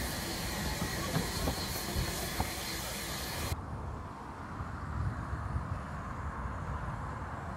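Narrow-gauge railway carriages rolling past close by, with a steady hiss and scattered wheel clicks. About halfway through the sound cuts off suddenly to a duller, quieter low rumble.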